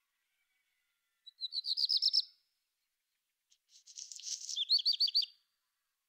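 A small songbird singing two short phrases of quick, high repeated notes, the first about a second in and the second a couple of seconds later, opening with a harsher, scratchy part.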